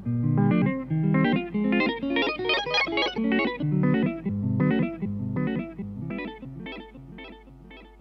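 Tomkins Tele electric guitar through a Caline Parrot Delay digital delay with the repeats set near-infinite: a guitar phrase keeps cycling in echoes, which turn glitchy as the pedal's knob is moved, then gradually die away.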